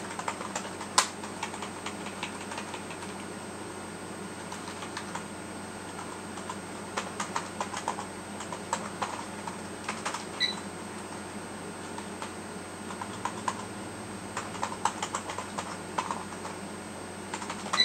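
Typing on a computer keyboard: irregular bursts of keystrokes separated by short pauses.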